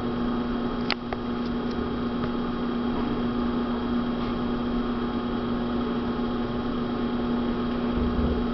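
Electric potter's wheel motor humming steadily as the wheel head spins, with a small click about a second in.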